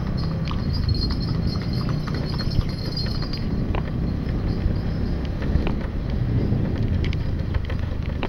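Clip-clop of a horse's hooves on the road as a horse-drawn cart passes close alongside, over the steady low running of a small motorcycle moving at slow speed.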